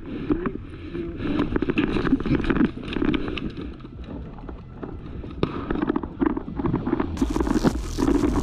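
Rapid knocks, scuffs and scrapes of people moving and handling gear, with a rush of noise starting about seven seconds in.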